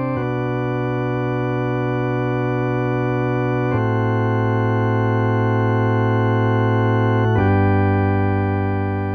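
Instrumental music of held organ chords, each held about three and a half seconds before moving to the next, beginning to fade out near the end.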